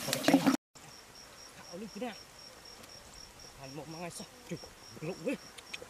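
Insect chirping: a high, steady tone in even pulses about five times a second, with a few faint short calls that rise and fall in pitch.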